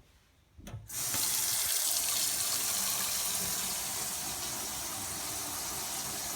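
Sink faucet turned on about a second in, then water running steadily into the sink.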